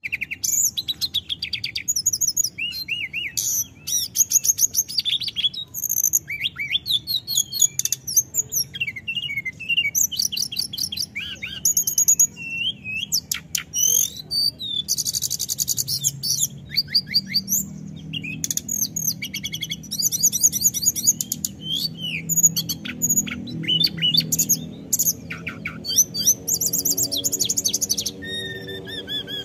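Hill blue flycatcher singing continuously: a long, unbroken run of fast, high trills and whistled phrases, full and rolling.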